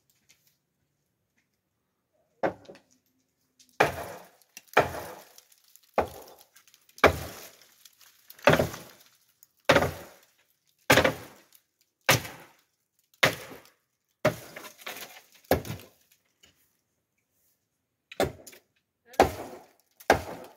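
Heavy strikes, about a dozen at roughly one a second, each dying away within half a second; after a short pause, three more near the end.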